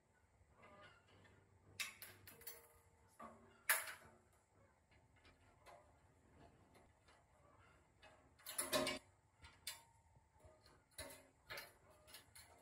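Irregular light clicks and knocks of hand-tool work on parts, with a few sharper taps: a loud one about four seconds in and a cluster of knocks about nine seconds in.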